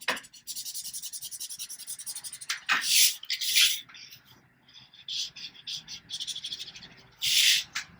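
A marker scribbling on paper, colouring in with quick back-and-forth strokes, with a few louder swipes and a short pause around the middle.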